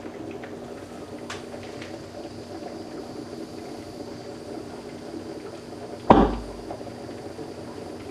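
One sharp pop about six seconds in: oxyhydrogen (HHO) gas from a stainless-steel-plate electrolysis cell igniting in a small plastic bottle, not much of a bang. Underneath, steady bubbling of the running electrolyzer cells.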